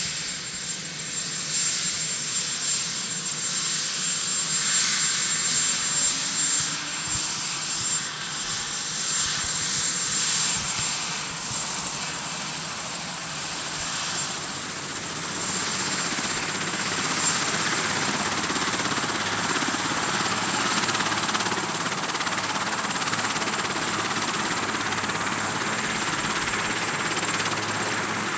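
Marine One, a Sikorsky VH-3D Sea King helicopter, running on the ground with its main rotor turning: a steady rotor and engine rush with a thin high turbine whine that rises over the first few seconds. The sound grows fuller and steadier about halfway through.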